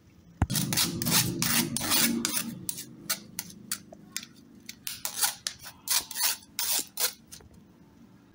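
Steel spoon scraping and pressing wet tamarind pulp against a wire-mesh strainer. The strokes come thick and fast for the first two seconds or so, then as separate strokes that stop near the end.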